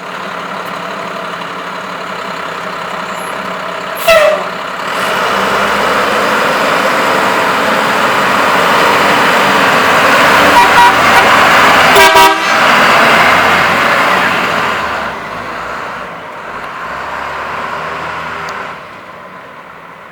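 School bus's 5.9L Cummins inline-six diesel running, then pulling away and driving past, growing louder and then fading as it moves off. A sharp short burst comes about four seconds in. The air horn sounds in short blasts around ten and twelve seconds in as the bus passes.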